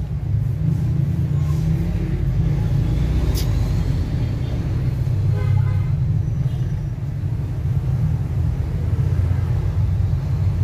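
Carbureted Honda Civic four-cylinder engine idling with the air cleaner off, a steady low rumble. There is one sharp click about three and a half seconds in.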